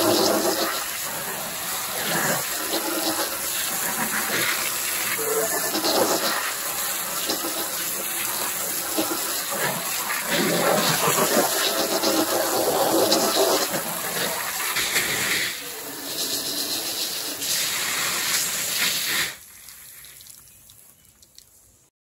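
Water from a hose spraying against a window and the house wrap around it, in a water test of the flashed window for leaks. The spray surges and eases, and the sound drops off sharply about 19 seconds in.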